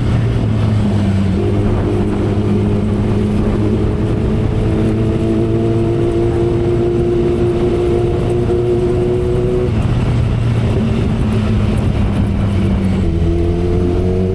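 2012 Kawasaki Ninja ZX-10R's inline-four engine running steadily at cruising revs, with wind noise. The engine note creeps slowly upward, changes pitch about ten seconds in and again near the end.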